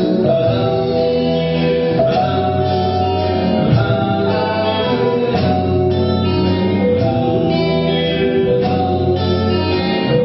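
Live rock band playing: held keyboard chords over bass guitar and electric guitar, with singing.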